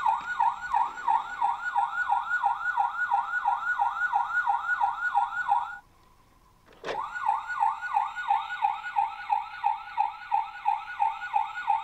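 Toy fire engine's electronic siren sound effect: a fast yelping wail of about four sweeps a second. It plays in two runs of about six seconds each, with a one-second pause in the middle.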